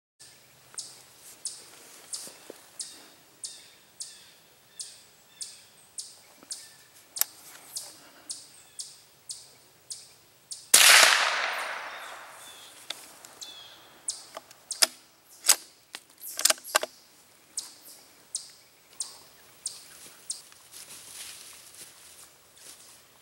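A single shot from a Marlin 25N bolt-action .22 rimfire rifle, a sharp crack that echoes away through the woods, about eleven seconds in and the loudest sound here. A few sharp clicks follow a few seconds later. Around it runs a steady series of short high chirps, about one and a half a second.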